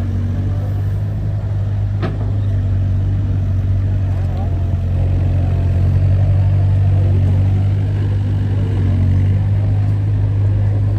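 An engine running steadily at low revs with a low, even hum. There is a single short click about two seconds in.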